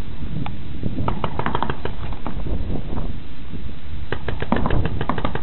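Paintball markers firing in quick strings of sharp pops, one run of shots about a second in and another about four seconds in, over a steady low rumble.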